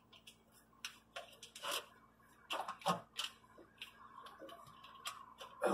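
Scattered small clicks, knocks and rustles of a hand groping among plastic-sheathed cable looms and battery hardware, with a louder knock at the very end.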